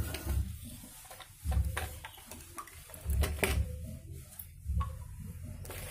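Light knocks and clicks of PVC pipes being handled and set down on a tiled floor, a few separate strikes, over a low thudding that repeats about every second and a half.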